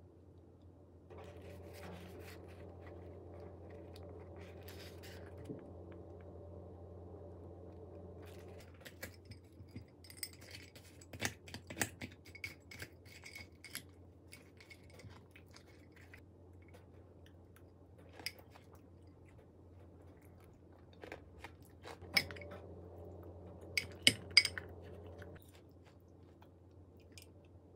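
A spoon clinking and scraping in a glass mug of Greek yogurt, with soft eating sounds. Near the end come a few sharper clicks of metal chopsticks against a plate.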